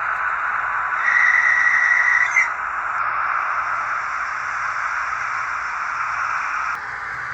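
Brake squeal from the sound decoder of a Märklin H0 model locomotive, played through its small onboard speaker: a steady high-pitched squeal starting about a second in and lasting about a second and a half, over the loco's steady hissing running sound. The decoder has been adjusted so the squeal triggers at a lower speed as the loco slows.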